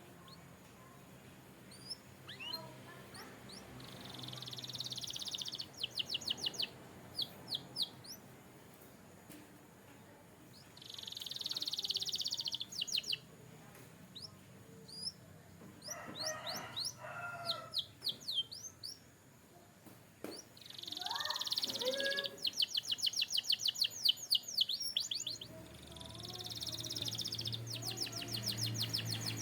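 Domestic canary singing in repeated phrases: each phrase is a buzzy rolled note followed by a rapid trill of quick down-slurred notes, about four phrases in all, with a few lower gliding notes in between.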